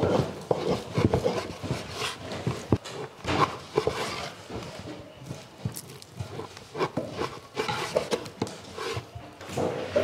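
Knives cutting raw lamb on wooden cutting boards, the blades knocking against the wood in an irregular run of knocks.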